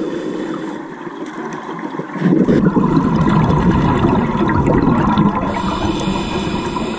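Scuba diver's regulator breathing recorded underwater: a quieter stretch, then a loud rush of exhaled bubbles starting about two seconds in and lasting about three seconds.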